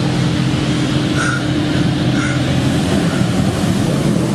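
Automatic car wash running over the car, heard from inside the cabin: water spraying against the windows over a steady machinery hum.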